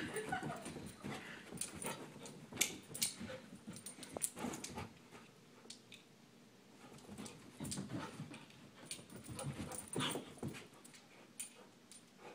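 Small dog panting and whimpering while it darts and pounces after a laser dot on carpet, in irregular short bursts of breath and scuffling.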